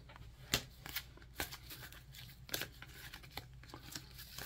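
Baseball cards being handled in the hand: a handful of faint taps and rustles as the freshly opened stack is squared up and fanned, the loudest about half a second in.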